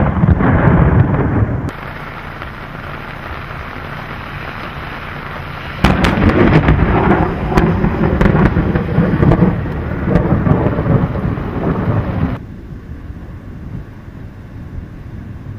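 Thunder rumbling in a rainstorm. A loud rumble cuts off suddenly about two seconds in, leaving steady rain. About six seconds in a sudden crack of thunder rumbles on for about six seconds, then drops back to steady rain.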